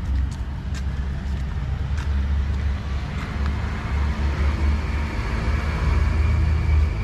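Road traffic: a vehicle running with a low rumble that grows louder towards the end.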